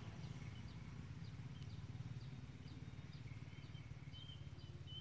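Small birds chirping: short downward chirps about twice a second, with a few longer held notes near the end. A steady low hum runs underneath.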